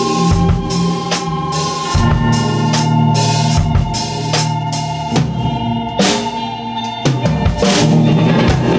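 Instrumental band music from a jam session: a drum kit playing a steady beat with snare and bass drum under held organ chords that change every couple of seconds.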